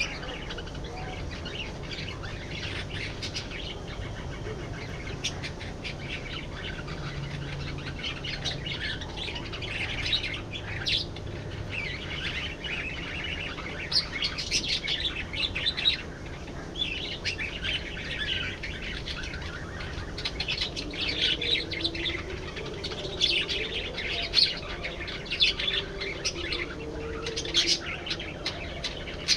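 A flock of budgerigars chattering: a dense, unbroken run of short high chirps and warbles, with a few louder clusters of calls.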